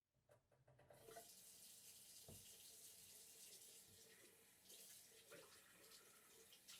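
Faint running water, a steady splashing hiss with small irregular splashes, fading in over the first second.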